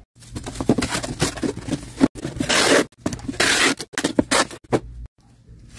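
Packing tape pulled off a handheld tape-gun dispenser across a cardboard box in two long strips, each about half a second, near the middle. Crackly rustling and clicks of packing and the box being handled come before and after.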